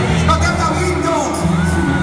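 Loud live concert music played through an arena sound system, with heavy, steady bass.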